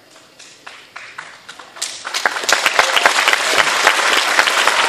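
Audience applauding: a few scattered claps that swell into full, dense applause about two seconds in.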